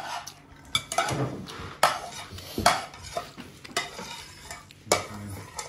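Metal spoons clinking and scraping against plates and serving dishes, with a sharp clink about every second.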